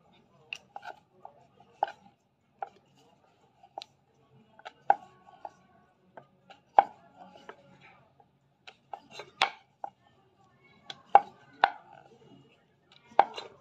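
Wooden rolling pin knocking and clacking against a wooden chakla board as small rounds of dough are rolled out: irregular sharp knocks, a dozen or more, some in quick pairs.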